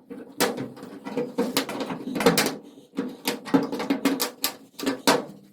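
Irregular sharp knocks and taps on the thin sheet-steel hood panel, roughly three a second, each with a short metallic ring.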